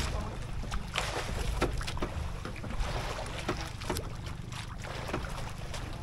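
Small fishing boat on rough sea: a steady low rumble with wind on the microphone, broken by irregular sharp knocks and splashes of water against the hull.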